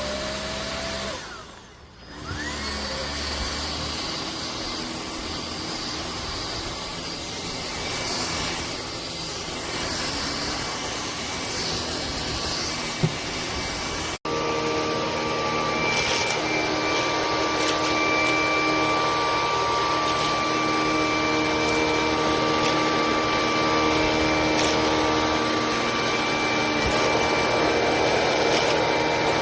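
Hoover ONEPWR Evolve Pet Elite cordless stick vacuum running steadily. Its sound drops away briefly about two seconds in, and there is a sudden break about halfway through, after which it runs slightly louder with a steady whine.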